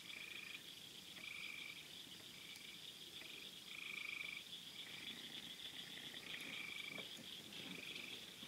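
Faint night chorus of frogs: short trilled calls about once a second over a steady high-pitched drone.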